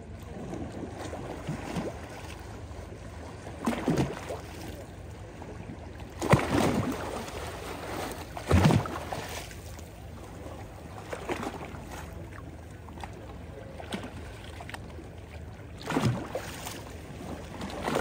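Small waves lapping and splashing at a stony sea shore, a soft splash every few seconds over a steady wash of water. The loudest splashes come about six and a half and eight and a half seconds in.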